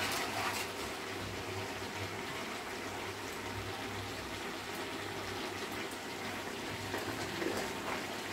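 Chicken curry simmering in its own juices in an uncovered aluminium pot on a gas stove: a steady watery hiss.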